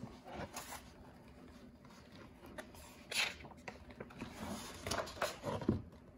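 Soft paper rustling as the page of a picture book is turned, with swishes about three seconds in and again near the end.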